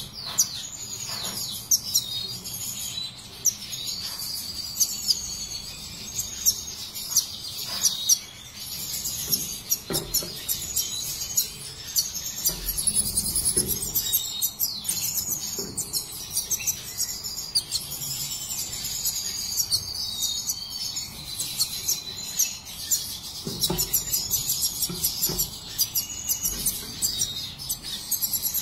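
Caged finches chirping and twittering without a break: quick high trills and warbles, with many short, sharp call notes standing out above them.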